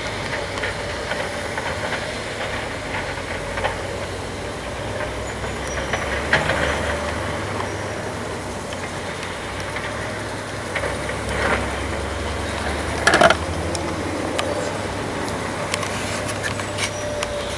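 Heavy demolition machinery running steadily out of sight, a low engine rumble with a few metallic clanks, the loudest about two-thirds of the way through.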